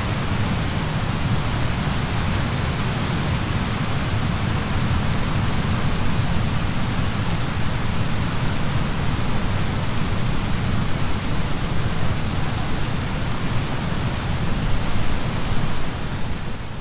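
Steady thunderstorm rain with a continuous low rumble, a little louder in the second half, fading out at the very end.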